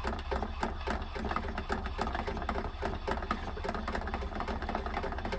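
Handmade erekiteru, a friction static-electricity generator, being hand-cranked: a steady low mechanical hum with a dense run of irregular clicks and snaps as small sparks jump at its wire electrode.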